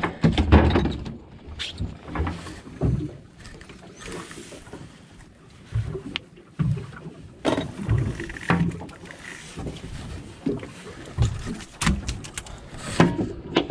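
Irregular knocks, taps and thumps on a fiberglass boat deck as a freshly landed black rockfish flops about and fishing gear is handled, over a low background haze.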